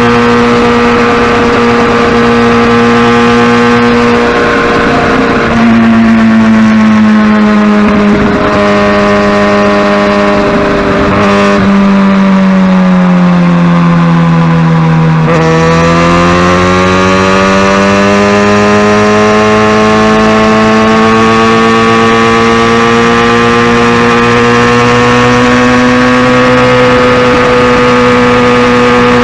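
Kawasaki Ninja ZX-6R inline-four engine under way, holding a steady note, then easing off with the pitch falling slowly for about ten seconds. Halfway through, the note jumps up and climbs back to a steady cruise.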